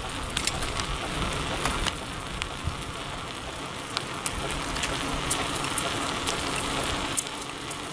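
Bicycle tyres rolling along a paved trail: a steady crackly hiss with scattered irregular ticks and clicks. It includes the back tire, which the rider says might need a little adjusting but is mostly fine.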